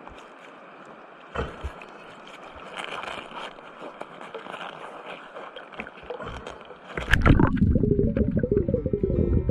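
Water noise heard through a diver's camera housing, a hiss with scattered clicks and gurgles. About seven seconds in, a much louder low rushing sound starts abruptly.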